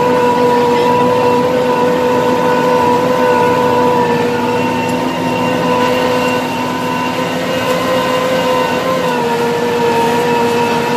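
Small tractor's engine running steadily at a constant pitch under load while pulling a cultivator through tilled soil, heard close up from aboard the tractor; the pitch sags slightly about nine seconds in.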